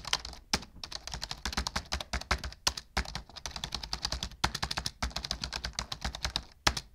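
Typing on a computer keyboard: rapid keystrokes clicking in quick runs, broken by a few short pauses.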